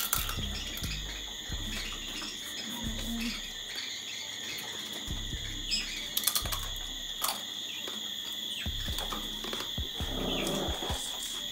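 Steady high-pitched chirring of crickets, with scattered small clicks and smacks from eating lobster with the fingers.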